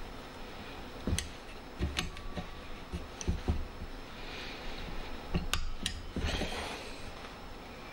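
Locking pliers gripping and working a steel rod in a drilled-out bolt hole. A few sharp metallic clicks and small knocks are heard as the pliers snap on and off and shift on the metal.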